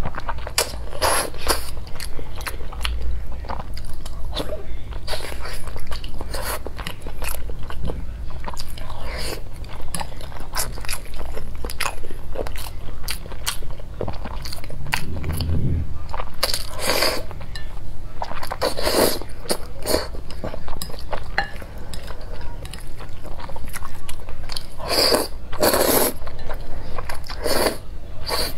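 Close-miked mouth sounds of a person eating black-bean-sauce noodles: wet chewing and smacking throughout, with several longer slurps as mouthfuls of noodles are drawn in.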